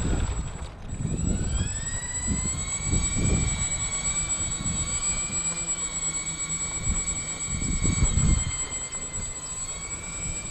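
Four brushless electric motors of a remote-control B-24 Liberator model whining. The pitch rises about a second in as the throttle opens, holds steady, then dips briefly near the end and climbs again. Irregular low buffeting from wind on the microphone runs underneath.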